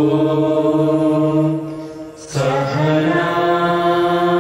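A group of men and women chanting a long held note together as a prayer, breaking off for a breath about two seconds in and then resuming.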